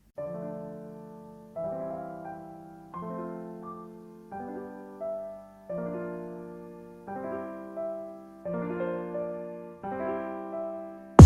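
Background music: soft piano chords, struck about every second and a half and left to fade.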